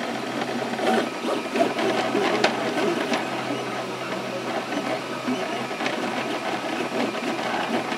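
3D printer running: its stepper motors whirring in a busy, shifting pattern as the print head moves, over a steady low hum.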